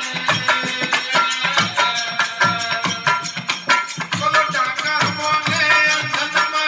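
Marwari desi veena bhajan music: a hand drum keeping a quick, steady rhythm under the plucked strings of the desi veena.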